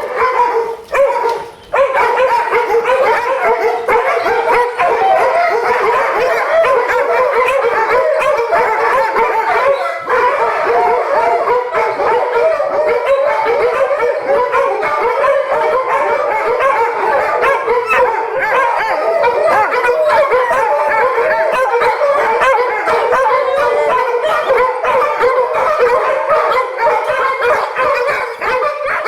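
A pack of pit bulls howling and yipping together without a break, many wavering voices overlapping. The pack is anxious and howling for a person who is missing from the household.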